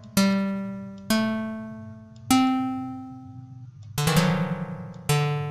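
FL Studio's Plucked! synth sounding single plucked-string notes one at a time, about five notes roughly a second apart, each struck sharply and fading away, at different pitches.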